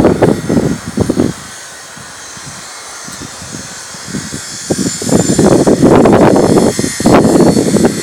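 Wind buffeting the microphone in irregular rumbling gusts, strongest at the start and again from about five seconds in, with a quieter lull between.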